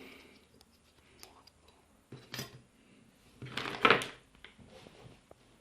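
Repair tools and small hard objects being picked up and set down on a workbench: scattered clicks and knocks, with a louder clatter about four seconds in.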